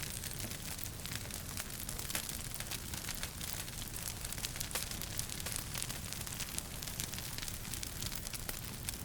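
Wood fire burning in a fireplace, crackling with many small sharp pops over a steady low rumble and hiss.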